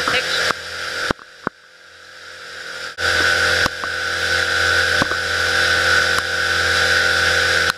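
Pontoon boat under way: outboard motor running steadily beneath a loud, even rushing noise, with a few sharp knocks. The sound drops away about a second in and comes back abruptly about three seconds in.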